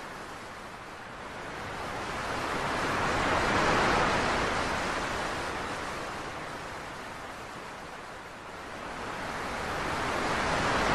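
Ocean surf, a wave washing in: the rush swells to a peak about four seconds in, falls away, then swells again near the end.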